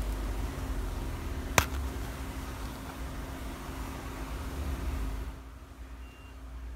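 Steady low background hum with faint hiss, and a single sharp click about a second and a half in. The hiss drops away near the end.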